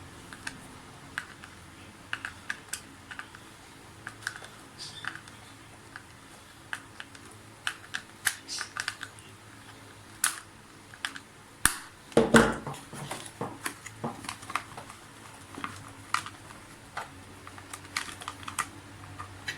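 Scattered light clicks and taps of small plastic and metal parts being fastened back together while reassembling a vacuum cleaner's cord-reel assembly, with a sharp click and then a louder knock about twelve seconds in.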